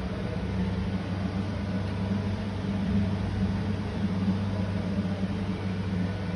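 A steady low mechanical hum holding an even tone throughout.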